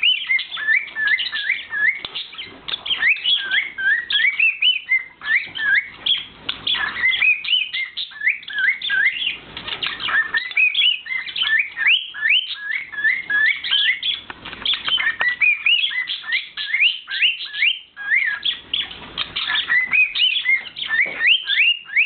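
Two cockatiels singing: a continuous run of short, rising whistled notes and chirps, with quick clicks mixed in.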